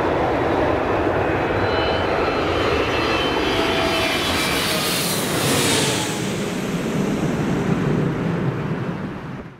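Twin-engine jet airliner passing low overhead on approach with its gear down: steady jet noise with an engine whine, shrillest about halfway through as it goes over, then a deeper rumble as it moves away. It cuts off near the end.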